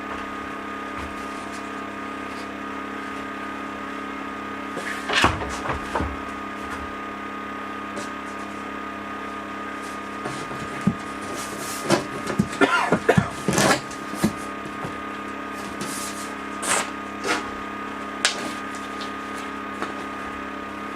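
Pneumatic nail gun firing sharp knocks as lauan plywood ceiling panels are fastened: a few about five seconds in, a rapid cluster from about eleven to fourteen seconds, then a few single shots. A motor runs with a steady hum underneath throughout.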